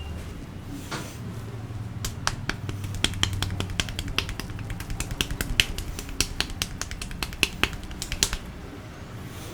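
Rapid, irregular sharp snaps and cracks from the barber's hands during a head massage. They start about two seconds in, come several a second, and stop a little before the end, over a low background hum.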